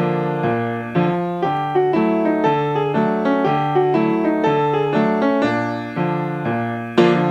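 Instrumental band music led by a keyboard playing a repeating figure of struck chords and notes, a new attack about every half second, with a heavier accented chord near the end.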